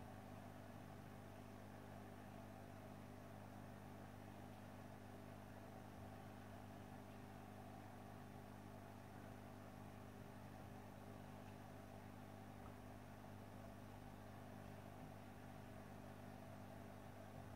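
Faint steady hum of an aquarium filter pump running, with a light hiss.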